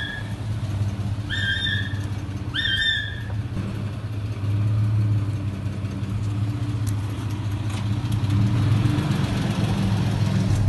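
Steady low drone of an idling engine, with three short high chirps in the first three seconds.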